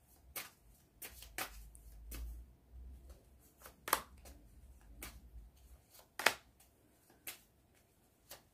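A deck of divination cards shuffled by hand: soft, irregular clicks and riffles of the cards, with two sharper snaps about four and six seconds in.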